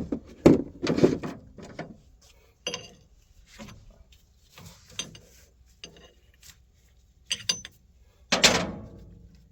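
Metal clinks and knocks of a wrench and a hydraulic fitting being worked loose and handled, a dozen or so separate strikes, the loudest a clatter near the end.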